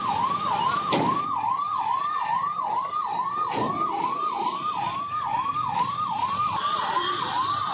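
Ambulance siren wailing in a fast, even up-and-down cycle, about three sweeps a second.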